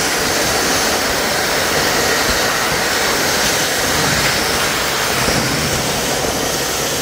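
Miele Triflex HX2 cordless stick vacuum running at maximum power: a steady, even whir of motor and suction with a faint high whine.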